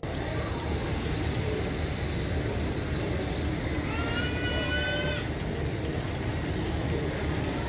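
Railway station ambience: a steady low rumble and noise. About four seconds in, a single high, flat-pitched call lasts a little over a second.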